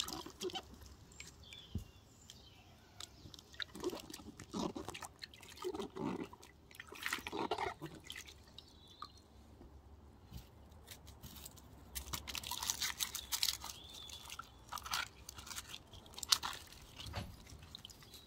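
Water splashing and dripping as eggplants are rubbed clean by hand in a wooden bowl of water and lifted out. In the second half, crisp crackling of dry onion skins as onions are handled and peeled in the bowl.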